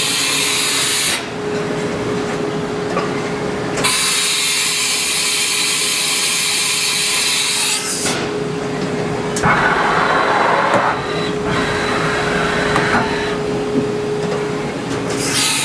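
2000 Haas Minimill vertical machining center running its program cycle: a steady machine whine, with a loud hiss that cuts off about a second in, returns near four seconds, stops again near eight and comes back at the end.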